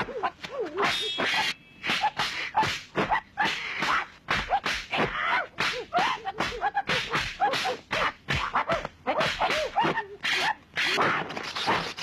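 Kung fu film fight sound effects: a rapid run of punch whacks and whip-like whooshes, mixed with short, bending animal-like cries.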